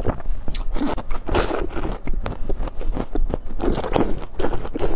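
Boiled bamboo shoot being peeled by hand, its fibrous sheath layers tearing and scraping off in short irregular bursts, then bitten into and chewed, close to the microphone.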